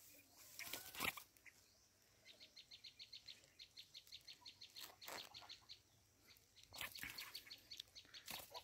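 Red-whiskered bulbuls at a trap cage: a faint run of short, quick chirps, about four a second, starting about two seconds in, with a few brief wing flutters.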